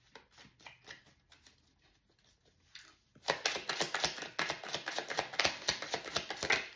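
A deck of tarot cards being shuffled by hand: scattered light card clicks, then from about three seconds in a dense run of rapid, louder card clicks that stops just before the end.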